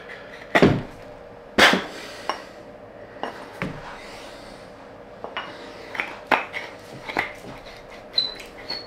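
Rough-ended steel rod being worked in a small hole in a wooden block, scraping out hardened superglue: sharp clicks and knocks of metal on wood, the two loudest in the first two seconds, then a run of lighter clicks and two brief high squeaks near the end.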